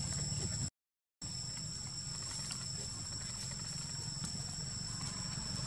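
Outdoor forest ambience: a steady low rumble under an even, high two-note insect drone. About a second in, the sound cuts out completely for half a second.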